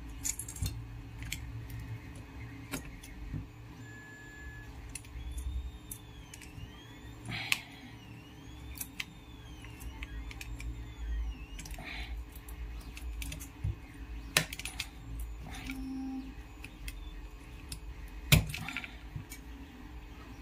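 Scattered small clicks and taps of electronic parts being handled: stepper motor driver modules pressed onto the pin headers of a RAMPS 1.4 board, over a low rumble of hands moving on the bench. The sharpest click comes near the end.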